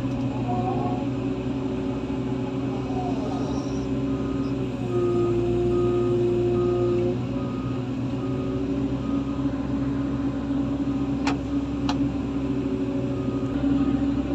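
Diesel engines of heavy equipment running steadily, with a backup alarm beeping about once a second. About five seconds in one engine's note rises and grows louder for about two seconds, and two sharp clicks come near the end.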